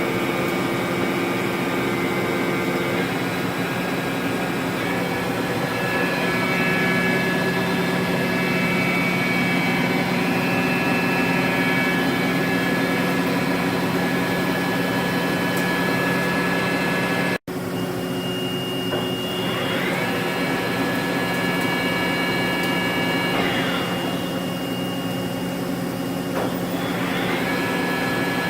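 Spindle drive of a 1995 Mazak Slant Turn 60 CNC lathe running under test: a steady machine whine made of several tones. The pitch shifts a few seconds in, and there is a brief break in the sound about two-thirds through. After that the whine dips and climbs again about three times as the spindle speed is changed.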